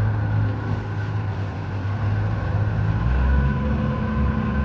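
An engine running steadily with a low hum, its note shifting lower and fuller about three seconds in.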